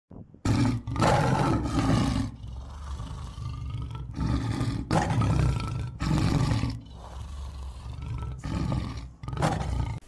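A lion's roar, put in as a sound effect: a series of deep, rough roars and grunts that rise and fall several times.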